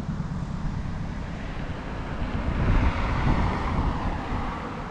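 A passing vehicle: its road noise swells about two to three seconds in, then fades. Low wind rumble on the microphone runs underneath.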